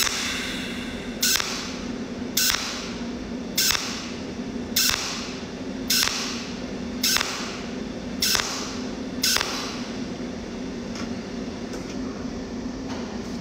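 Cold welding machine laying overlapping spot welds with a tungsten torch along stranded cable, one short sharp zap about every 1.2 seconds over a steady hum. The zaps turn fainter and less regular near the end.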